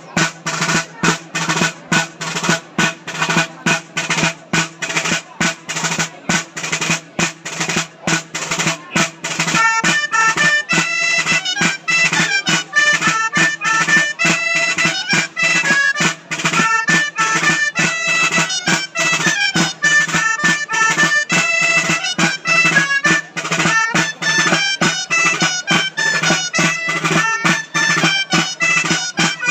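Traditional folk dance music played live by reed pipes and a drum. The drum beats a steady rhythm over a low held note, and the pipe melody comes in about ten seconds in.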